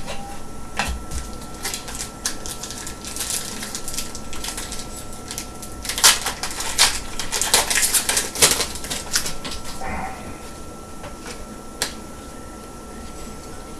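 Hockey trading cards and their pack wrappers being handled: a run of small clicks and crinkles, busiest from about six to nine seconds in.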